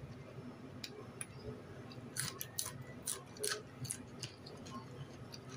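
Eating sounds of a rice meal with raw long beans: irregular crisp clicks and crunches, thickest about two to four seconds in, over a faint low hum.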